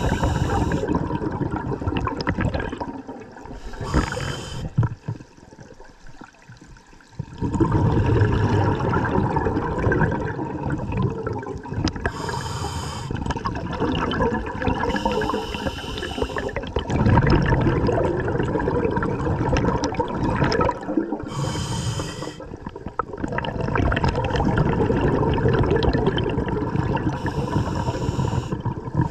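Scuba diver breathing through a regulator underwater: long bubbling rumbles of exhaled air, each broken by a short hiss as the diver inhales, about every four to six seconds. There is a quieter pause of about two seconds roughly five seconds in.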